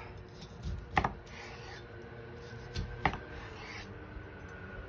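Chef's knife slicing through a seared duck breast, the blade knocking on a wooden cutting board twice, about a second in and again about three seconds in, with quieter rubbing of the blade through the meat between.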